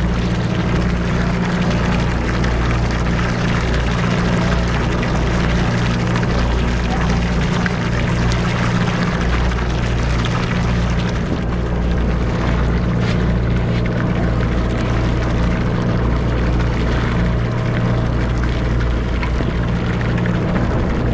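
Sport-fishing boat's engine running with a steady low drone, over the even wash of water along the hull.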